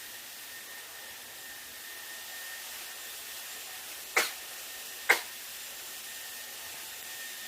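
A hair dryer running with a steady hiss and a faint whine. Two short, sharp sneezes sound about a second apart, a little past the middle, the second slightly louder.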